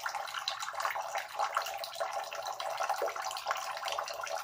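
Bathroom faucet running a thin, steady stream of water into the sink basin, splashing near the drain.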